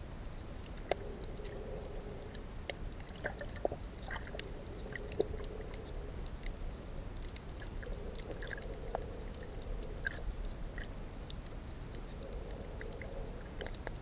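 Underwater reef ambience: scattered sharp clicks and crackles over a low steady rumble, with a faint hum that comes and goes a few times.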